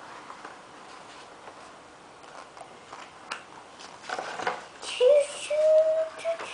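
A page of a large picture book is turned with a papery rustle about four seconds in. Then a toddler makes one long, drawn-out vocal sound that rises slightly in pitch.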